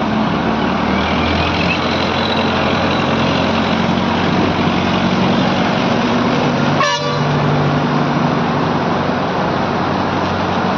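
ACE 14-ton Hydra crane's diesel engine running steadily under working load, a loud even noise with a low hum, broken by one short sharp blip about seven seconds in.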